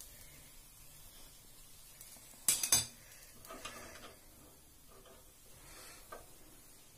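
Metal skewer clinking against a ceramic plate as seekh kababs are slid off it onto the plate. A sharp double clatter comes about two and a half seconds in, with a few fainter taps later.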